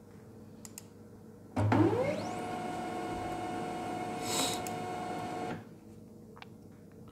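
HP Laser MFP 135wr laser printer's internal mechanism starting up: a sudden whine that rises in pitch and settles into a steady hum for about four seconds, with a brief rattle near the middle, then stops abruptly. A few faint clicks come before and after.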